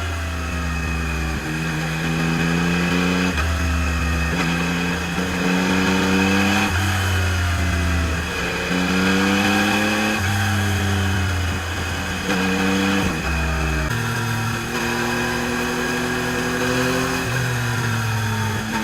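Yamaha MT-09 SP's three-cylinder engine on its stock exhaust, accelerating through the gears: the pitch climbs, drops at each gear change and climbs again, over and over.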